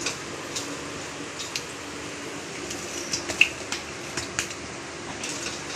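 Hot oil sizzling and dripping as fried golibaje are lifted out of a steel kadai with a perforated steel ladle, with scattered light clinks and taps of the ladle against the pan and bowl.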